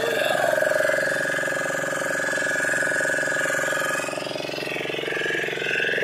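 Fishing boat's engine running steadily at close range, with a rapid, even firing pulse.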